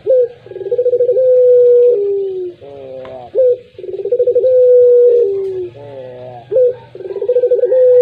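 Puter pelung, a domestic collared dove kept for its long coo, cooing over and over, about three full phrases. Each phrase is a short rising note, then a long held coo with a quavering start that drops lower near its end, then a quick stuttering run of notes.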